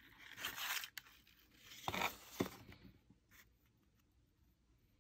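Kraft-paper box rustling and scraping as a crystal cluster is drawn out of it by hand, with a couple of sharp crackles about two seconds in. The handling stops after about three seconds.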